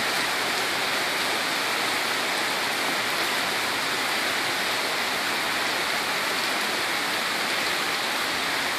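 Heavy rain pouring down in a steady, even hiss: a flash-flood downpour heavy enough to turn the street into a river.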